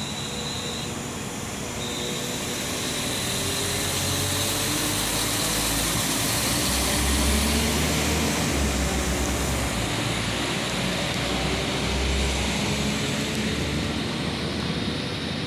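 A train running past on the track, growing louder over the first few seconds and holding a heavy rumble with a thin, steady high whine above it.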